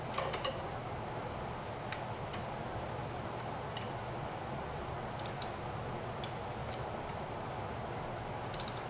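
Sparse light metallic clicks and clinks of hand wrenches on the nuts and bolts of a riding mower's new clutch wheel as they are tightened, with a short cluster about five seconds in and another near the end, over a steady low hum.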